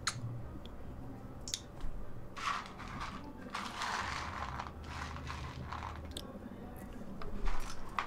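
Faint rustling and a few sharp clicks from a person moving and handling things, with louder handling noise close to the microphone near the end.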